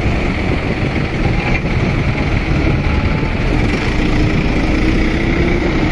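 Farm tractor's diesel engine running steadily at idle, close by, with a steady hum joining about halfway through.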